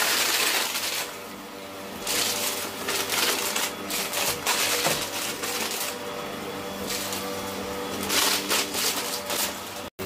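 Hoover Breeze Evo upright vacuum cleaner running on carpet: a steady motor hum under a rushing airflow that swells and fades as the head is pushed back and forth, with crackling as grit and crumbs are sucked up. The sound cuts out for an instant near the end.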